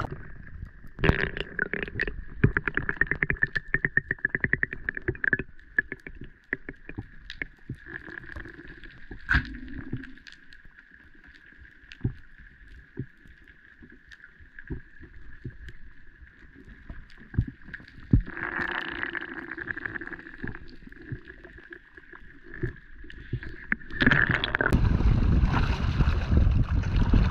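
Underwater sound picked up by a submerged action camera: a steady high hum with scattered clicks and crackles. About 24 seconds in the camera breaks the surface and loud splashing water and wind noise take over.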